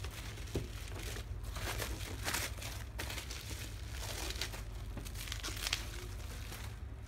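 Bubble-wrap packaging crinkling and crackling irregularly as it is handled and a boxed trimmer is slid out of it.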